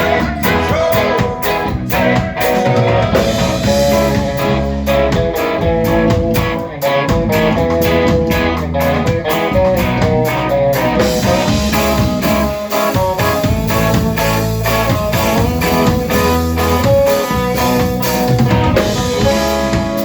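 Live rock band playing with electric guitar, a steady bass line and drum kit, with no clear vocal.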